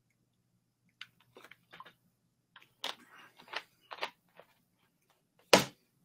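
Irregular clicks and small knocks, bunching together around the middle, with one much louder knock about five and a half seconds in, over a faint low hum.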